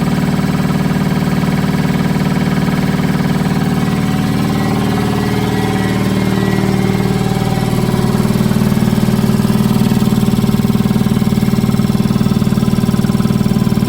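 Ingersoll Rand 7100E 15 HP three-phase air compressor running steadily, its pump and electric motor giving a loud, even mechanical hum. About eight seconds in, the running note shifts and grows a little louder.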